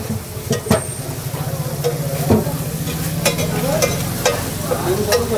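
Masala-coated fish steaks sizzling as they fry in oil in a wide pan, while a slotted metal spatula turns them, scraping and clinking against the pan several times. A low steady hum runs underneath.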